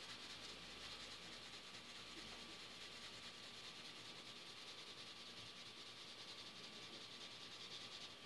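Faint rubbing of a 2B graphite pencil shading on drawing paper.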